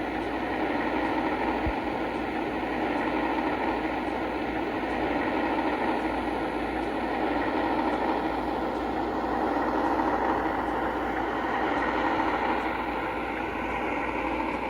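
Lionel O gauge Alco PA model diesel train running on its track: a steady rolling rumble that swells a little toward the middle and eases near the end.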